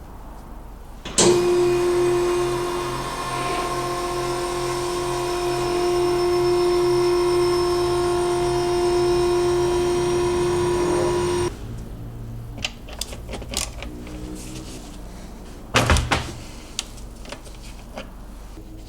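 A small electric motor starts suddenly and runs steadily with a strong hum and a pulsing low beat for about ten seconds, then cuts off. Light clicks and one sharp clatter follow.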